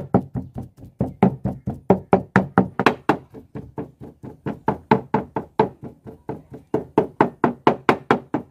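Knife blade chopping raw chicken on a round wooden board: a steady, rapid run of knocks, about five a second. The meat is being minced by hand into keema.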